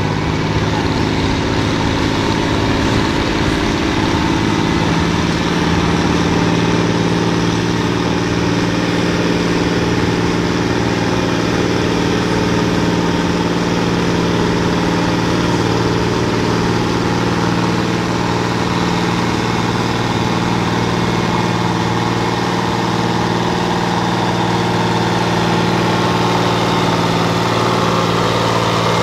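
Deutz tractor's air-cooled diesel engine running steadily under heavy load as it drags a weight-transfer sled at low speed, holding an even pitch throughout.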